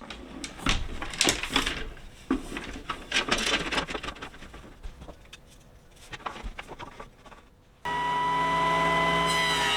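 Scattered knocks and clatter of wood and tools being handled. Near the end, an electric power-tool motor switches on suddenly and runs at a steady pitch.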